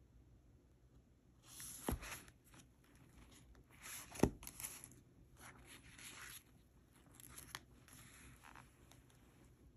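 Paper notebook pages and covers being handled and turned, in several short papery swishes. Two sharp taps come about two seconds and four seconds in, the second the loudest.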